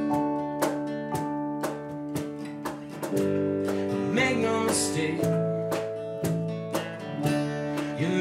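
A small band playing an instrumental passage: strummed acoustic guitar, electric bass and chords on a Nord Electro stage keyboard, with a cajon keeping a steady beat of about two strokes a second.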